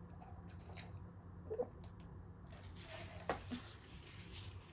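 Faint eating sounds of a person chewing a Whopper burger, with two short, louder mouth sounds about one and a half and three seconds in. A low steady hum runs underneath.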